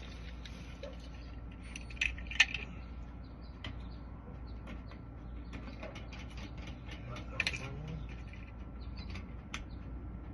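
Light metallic clicks and rattles of a mailbox lock and locksmith tools being handled, with sharper clusters of clicks about two seconds in and again about seven and a half seconds in.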